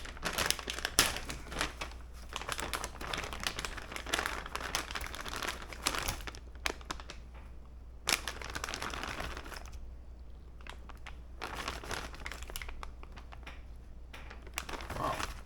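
Crinkling and rustling from hands handling something, with sharp crackles and small clicks, in three or four bouts with short pauses between them.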